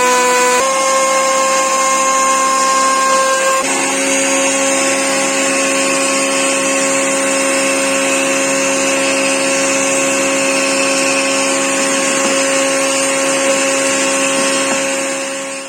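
Trim router motor running at a steady high speed, a continuous whine whose pitch steps slightly twice early on. It cuts off abruptly at the end.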